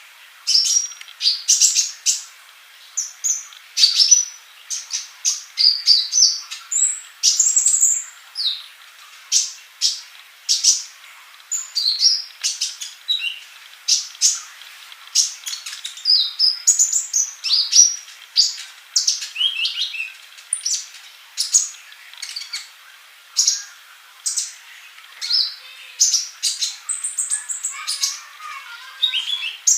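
A male purple-throated sunbird (kolibri ninja) singing continuously: rapid clusters of short, high-pitched chirps and quick twittering notes, separated by brief pauses.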